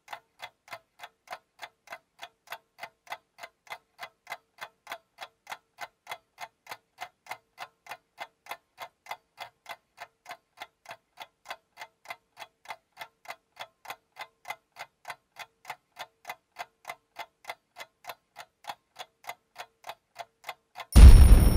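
Clock-tick sound effect of a countdown timer ticking evenly, about two or three ticks a second. Near the end, as the timer runs out, the ticking gives way to a loud explosion sound effect: a deep boom with a high ringing tone above it.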